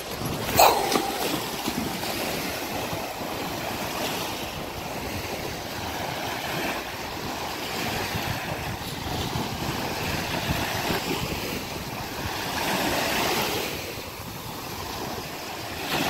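Small waves washing onto a sandy shore, with wind on the microphone. A brief sharp sound about half a second in.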